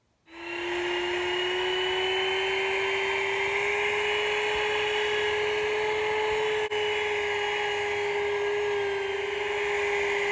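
Corded electric drill spinning a foam polishing pad against a plastic headlight lens, buffing in polish. It starts up just after the beginning and holds a steady whine, with one momentary break about two-thirds of the way through.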